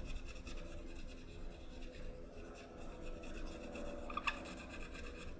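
Faint rubbing of a cotton swab wet with isopropyl alcohol scrubbing a keyboard's circuit-board contacts, cleaning dirt and oxidation off them. There is a brief click about four seconds in.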